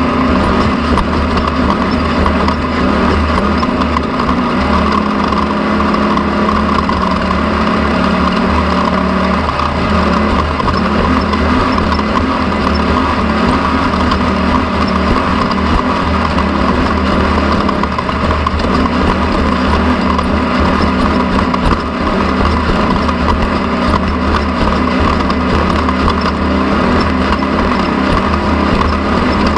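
A motor running loud and steady at an even speed, with a constant hum and no pauses.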